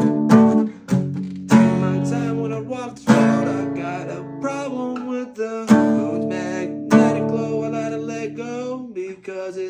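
Acoustic guitar strumming chords, with a firm strum every second or two, each left to ring.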